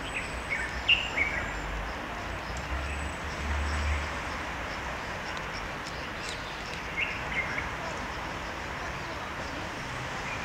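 Outdoor ambience: a steady background hiss with a few short bird chirps in the first second or so and again around seven seconds in, and a low rumble in between.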